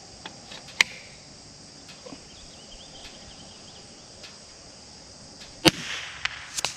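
.22 LR rifle shot near the end, a sharp crack with a short echo, followed by a few quick clicks; a fainter sharp crack comes about a second in.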